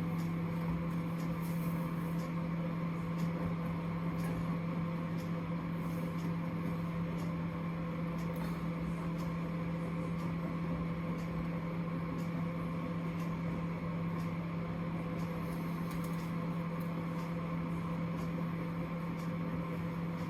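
Microwave oven running with a steady hum while heating an egg in a covered dish.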